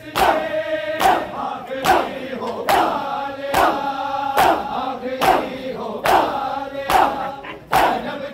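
A crowd of men chanting a mourning lament, with sharp chest-beating (matam) strikes a little over once a second keeping the beat.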